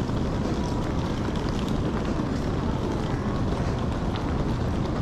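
Steady low rumble of aircraft noise at the gate, with faint scattered ticks.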